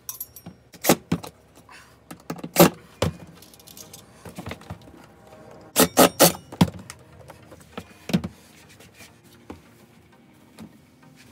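Scattered sharp metal clicks and clanks of bolts and a cordless drill being worked at the pressure washer's base. A few loud knocks come about a second in and near three seconds, then a quick run of three around six seconds, with little after about eight seconds.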